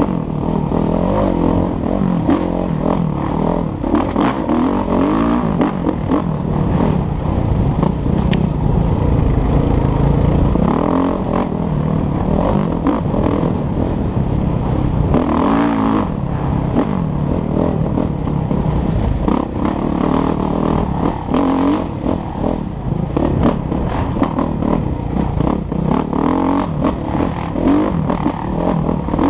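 Kawasaki KX450F four-stroke single-cylinder dirt bike engine being ridden on a trail, its pitch rising and falling over and over as the throttle is rolled on and off.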